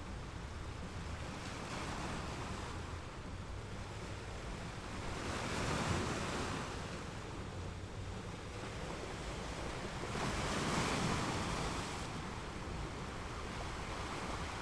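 Ocean waves washing onto a shore: a steady hiss of surf with two waves swelling and breaking, one about six seconds in and another about eleven seconds in.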